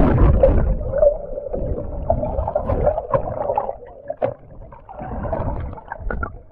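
Muffled sloshing and gurgling of seawater heard through a camera held underwater, with bubbles and surface chop washing over it. It is loudest in the first second or so, then comes in uneven surges.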